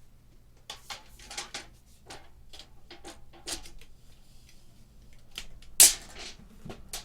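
Irregular clicks and knocks of equipment being handled on a desk, with one loud knock about six seconds in.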